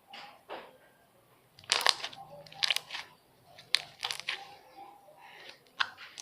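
Gloss slime being squeezed and worked in the hands, giving a string of short, sharp crackling and popping noises.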